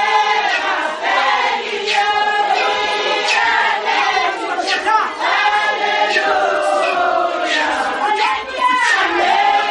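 A congregation of many voices singing together in a loud, continuous chorus, men's and women's voices mixed, with pitches sliding and overlapping.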